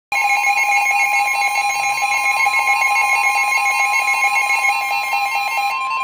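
Several NOAA weather radio receivers going off together for a flash flood warning. A steady single-pitch warning tone of about 1 kHz, the 1050 Hz weather-radio alert tone, sounds under the radios' own fast, pulsing alarm beeps. The tones start suddenly, and near the end some of the beeping stops while the steady tone carries on.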